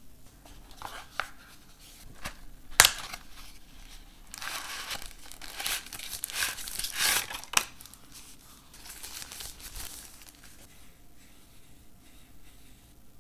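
Plastic packaging of a silicone phone case being crinkled and torn open by hand. There is a sharp click about three seconds in, then a spell of dense rustling in the middle that dies down toward the end.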